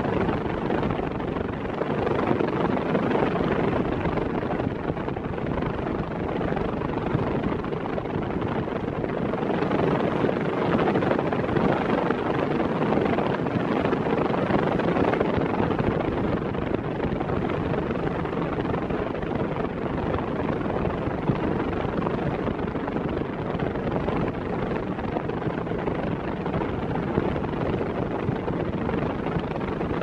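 Ventisol Turbo 6 50 cm, 135 W six-blade fan running steadily at maximum speed: an even rush of blade and air noise.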